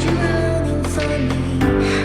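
Background music: a track with sustained bass notes and a melody over it.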